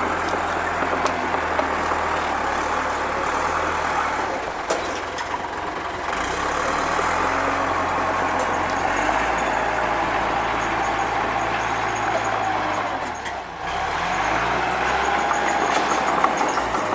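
Bulldozer's diesel engine running steadily as the machine works, with a continuous mechanical rattle over the engine note and a brief drop in level about two-thirds of the way through.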